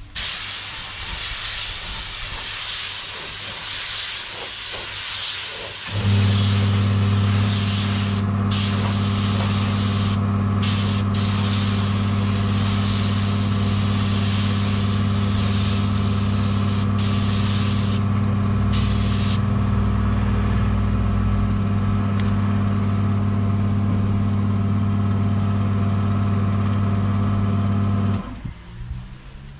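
Steady hiss of compressed air, broken by a few short gaps, as from a spray gun being triggered. About six seconds in, a steady electric motor hum starts, and it cuts off shortly before the end.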